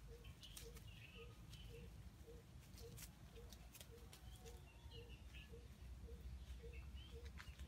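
Near silence: faint scattered clicks and rustles in dry leaf litter under a walking red junglefowl rooster, with a few faint high chirps and a soft low pulse repeating about twice a second.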